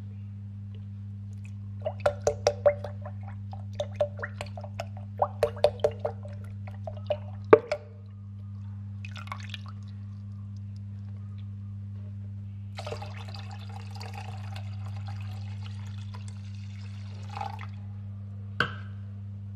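Liquid dripping and plinking into a ceramic pot of cooked barley and ginkgo nuts in a quick run of drops, then a few seconds of steady pouring as water goes in to thin the mix, over a steady low hum.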